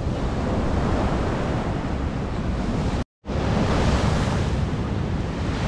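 Surf washing onto a sandy beach, mixed with wind rumbling on the microphone. The sound cuts out completely for a split second about three seconds in, then resumes the same.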